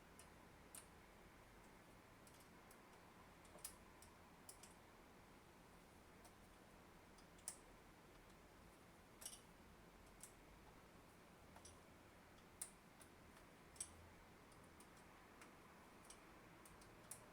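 Near silence with faint, irregular small clicks and ticks, about one a second, as drill-press parts are handled during assembly.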